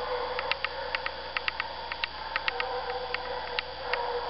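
Russian hounds giving voice on a chase, a continuous drawn-out baying that wavers in pitch, the sign that they are running a hot trail. Short sharp ticks come irregularly throughout.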